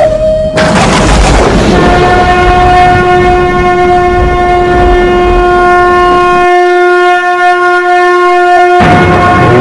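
A long, steady horn-like blast held for about seven seconds over a dense rumbling backdrop. The rumble drops away for the last couple of seconds while the blast holds, then the blast stops.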